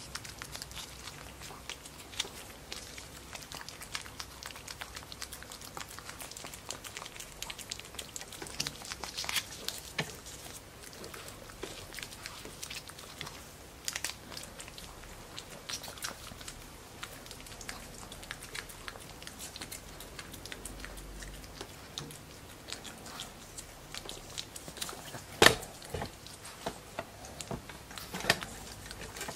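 Pekingese puppy licking and smacking at a squeeze tube of paste treat: a run of small, wet, irregular mouth clicks and smacks, with one sharper, louder click about three-quarters through.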